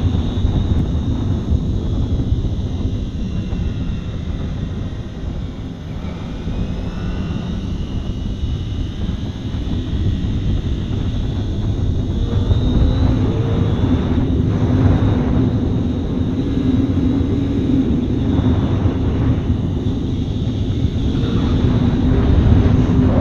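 Kawasaki ZX-25R's 250 cc inline-four engine running steadily under way, under a heavy rush of wind on the microphone. The engine note grows stronger and rises a little about halfway through as the bike picks up speed.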